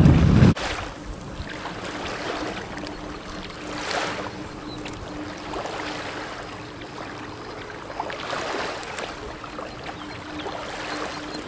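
Wind buffeting the microphone stops abruptly about half a second in, leaving soft wind and lapping water with a few brief swells and a faint steady hum.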